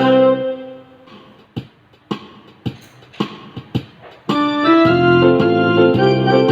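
Electronic keyboard music with piano and organ-like voices. A held chord fades out over the first second or so, a few short, sharp notes follow, and sustained chords in a steady pattern come back about four seconds in.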